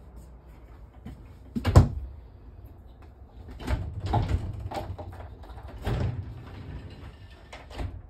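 Glass shower door being handled, knocking and rattling: one sharp knock about two seconds in, then a run of knocks around the middle and a few more near the end, as a hand works the cord tied across the door's knobs.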